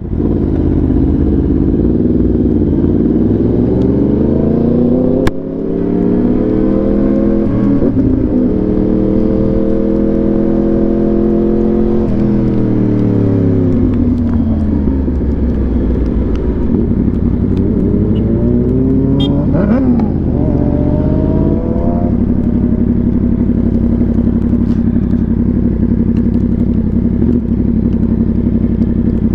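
Yamaha R1's inline-four engine through an SC Project exhaust, the motorcycle accelerating with its pitch rising, a sharp click and brief dip about five seconds in, easing off with the pitch falling around twelve to fifteen seconds, pulling up again, then holding steady.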